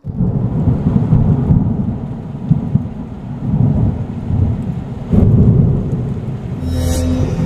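Loud, rough rumbling noise that starts abruptly, heaviest in the low end, surging and easing several times, with a brief hiss near the end.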